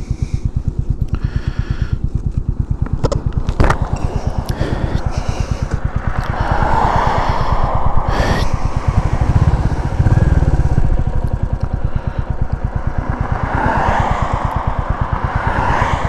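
Motorcycle engine and wind noise at a steady cruise of about 55 mph, heard through a microphone inside the rider's helmet, with a fast even pulsing low down. A couple of sharp clicks come a few seconds in and about halfway through.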